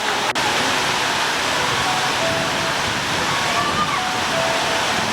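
Heavy rain falling in a steady, dense hiss, with voices in the background.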